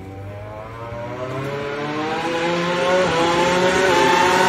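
A racing engine at speed, its pitch climbing steadily as it draws nearer and grows louder.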